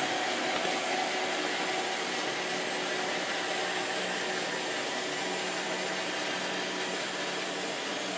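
iRobot Roomba 690 robot vacuum running steadily, its vacuum motor and brushes making an even noise with a faint hum, as it drives itself back to its charging dock. The noise cuts off suddenly right at the end as it docks.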